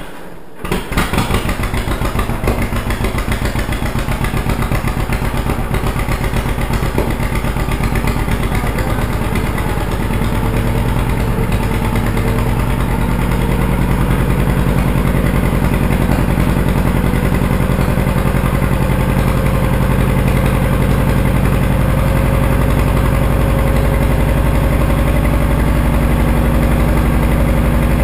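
John Deere 530 two-cylinder tractor engine catching about a second in, then running with a steady, even beat that picks up slightly in speed and holds there. This is the engine's first start after an overhaul.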